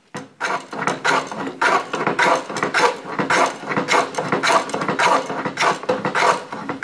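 Hand smoothing plane shaving along the corner of a square wooden blank clamped in a workbench, in quick repeated strokes, about three a second. The corners are being planed off to make the blank octagonal for turning.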